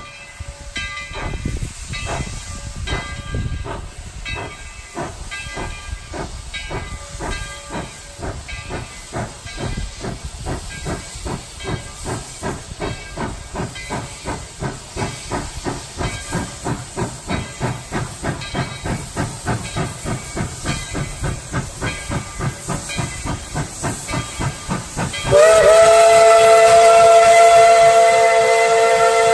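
Narrow-gauge steam locomotive pulling away with a train: its exhaust chuffs come faster and faster as it picks up speed, with a bell ringing during the first several seconds. About 25 seconds in, its steam whistle blows loud and holds, sounding several tones at once.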